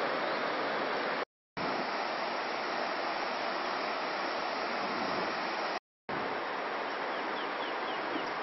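Steady rush of a shallow river running over rocky riffles, cut off twice by brief silent gaps.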